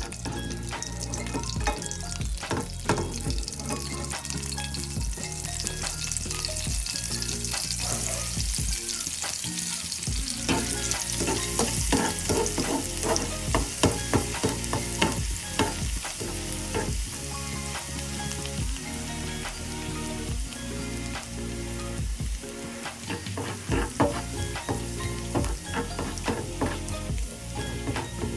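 Food sizzling in hot oil in a pan while being stirred, with a spatula clicking and scraping against the pan.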